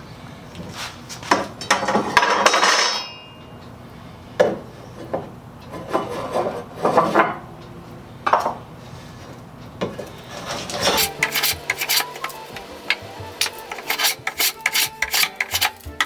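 Hand edge tool shaving a wooden board in irregular scraping strokes, the longest and loudest about two seconds in. From about eleven seconds in, a fast run of sharp ticking clicks over steady tones takes over.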